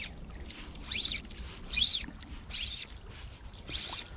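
A bird calling over and over, about once a second: short high notes that each rise and then fall, over the low rush of the creek's riffles.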